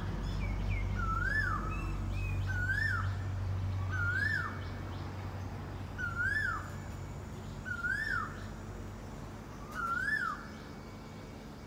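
A bird calling over and over: six times, a whistled note that slides up and then falls, at even intervals of about a second and a half. A low rumble runs under the first half.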